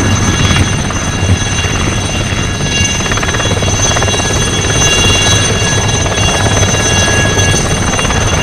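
Alouette III helicopter hovering low: its turboshaft gives a steady high-pitched turbine whine made of several constant tones, over a continuous low rotor beat.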